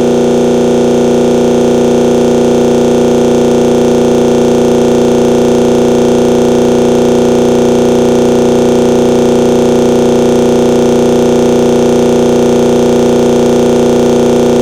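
Loud, unchanging synthesized drone of several held pitches.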